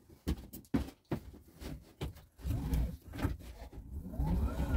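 A few short knocks and rubbing sounds, then the spin bike's wheel starts turning the 3 kW e-bike hub motor: a low whirring that builds, with a rising whine coming in near the end as it spins up.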